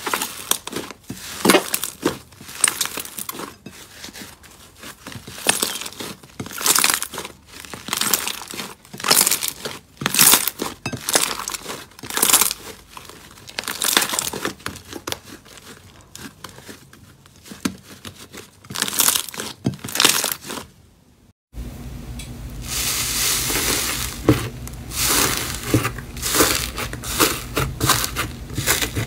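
Thick slime stretched and squeezed by hand, making irregular sticky crackles and pops. About 21 seconds in it changes to a grainy slime being poked and pressed with fingers, with denser, continuous crackling over a low steady background noise.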